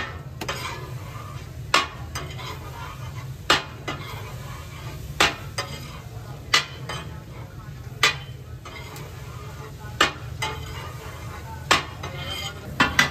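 Metal spatula scraping and striking a large steel tawa griddle as fish katakat fries on it. Sharp metal clanks come about every one and a half to two seconds over a steady sizzle and a low hum.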